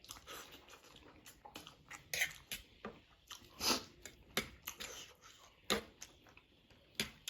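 A person chewing and slurping a mouthful of noodles with wet smacking and lip sounds close to the microphone, in irregular bursts several times a second.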